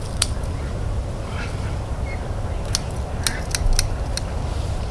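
A steady low rumble with a few sharp, short clicks, one just after the start and a quick cluster of about five in the second half.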